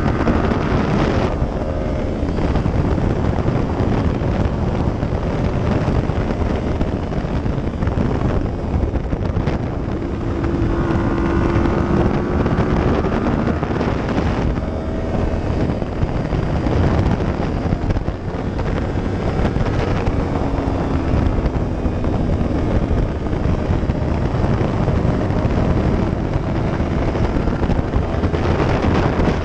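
2015 Yamaha R1's crossplane inline-four engine running under way, its pitch rising and falling with the throttle, buried in heavy wind rush on the bike-mounted microphone.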